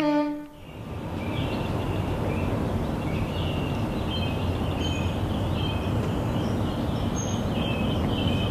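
A bowed-string chord cuts off about half a second in. It gives way to steady outdoor ambience: a low rumble like distant city traffic, with faint, high, broken chirping over it.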